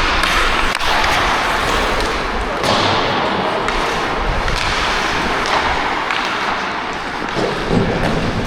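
Hockey skate blades scraping and carving on rink ice in a steady run of strides, with a few sharp knocks.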